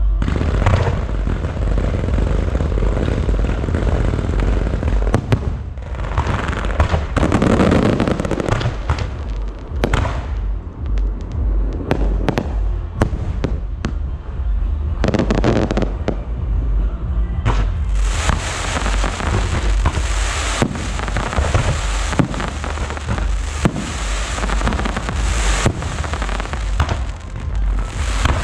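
Fireworks display going off in rapid succession: repeated booming bursts with crackle. About two-thirds of the way through it thickens into a dense, continuous crackling barrage.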